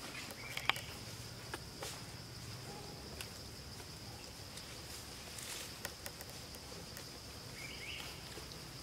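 Forest ambience: insects keep up a steady high-pitched drone, with scattered light clicks and rustles of twigs and leaves.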